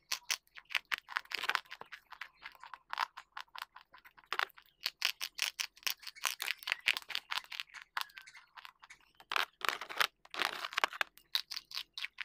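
Close-miked biting and chewing of a dry white chalk-like stick: rapid, irregular, crisp crunches, with a louder run of crunching about ten seconds in.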